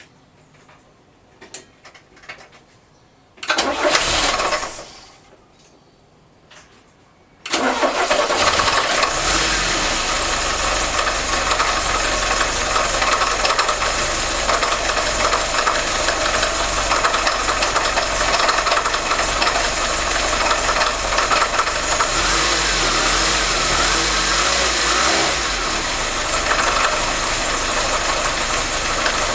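VAZ-2101 four-cylinder petrol engine being started: a short burst about three and a half seconds in dies away, then a second start at about seven and a half seconds catches and the engine runs steadily. This is the engine the owner says is knocking.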